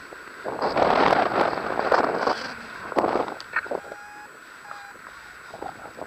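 Wind buffeting the microphone of a pole-mounted action camera in strong gusts as a tandem paraglider lifts off, then easing; two short beeps sound about four and five seconds in.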